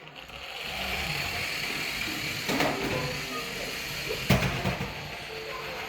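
Remote-control toy tow truck running: a steady whirr from its small electric motor and plastic gears, with two sharp knocks about two and a half and four seconds in as it bumps into things.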